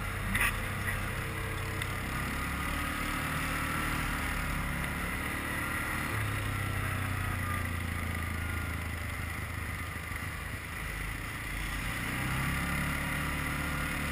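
Quad bike (ATV) engine running while riding along a road; its hum steps up about six seconds in and eases again near the end.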